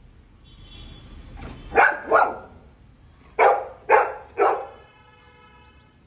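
Golden retriever barking five times: two barks, a short pause, then three more. A faint, steady horn-like tone carries on in the background after the barks.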